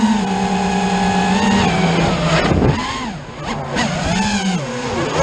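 An FPV quadcopter's motors and propellers whine steadily. About two seconds in, the pitch dips and swoops up and down as the throttle is eased and changed, then it settles back to a steady whine near the end.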